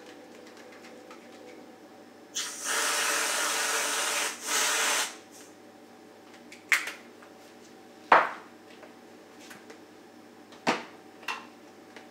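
Aerosol can of whipped cream spraying onto a drink: a hiss lasting about two seconds, then a shorter burst. A few sharp knocks follow, the loudest about eight seconds in.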